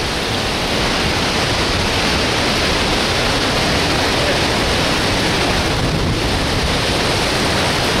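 Loud, steady rush of a waterfall at close range: one dense, even noise that never lets up.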